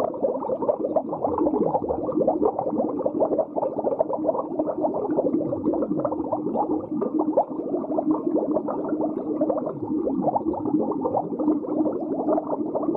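Muffled underwater bubbling: a dense, steady stream of bubbles with a low hum underneath.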